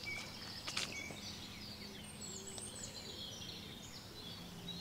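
Several small birds singing and calling, a scatter of short chirps and whistled notes, over a faint steady background hum, with a light click about a second in.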